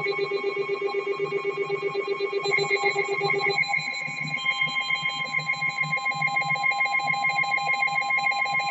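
Rapid, continuous electronic alarm beeping from a weather alert receiver. About three and a half seconds in, a steady single-pitch NOAA Weather Radio 1050 Hz warning alarm tone joins it and holds to the end, marking an urgent weather warning about to be read.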